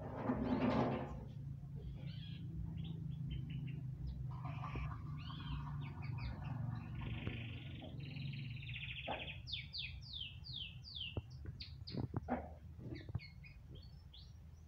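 Domestic canary (Belgian canary) singing a long, varied song: quick trills, a rolling buzzy stretch in the middle, and a run of fast downward-sweeping notes. A brief noisy burst comes right at the start, over a steady low hum.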